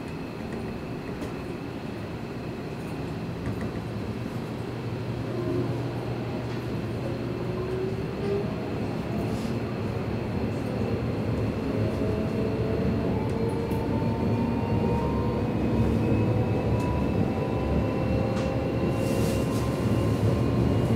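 Seibu Railway electric train running, its motor whine climbing in pitch and growing louder as it picks up speed over a steady rumble of wheels on track.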